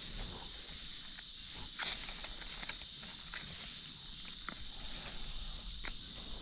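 A steady, unbroken high-pitched chorus of forest insects, with a few faint scattered clicks and crackles through it.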